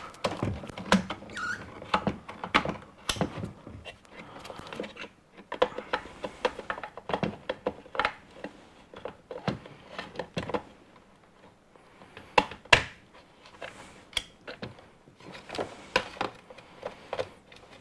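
Irregular plastic clicks, taps and knocks from a 4th-gen Pontiac Firebird taillight housing as its bulb sockets are twisted in and the wiring is handled.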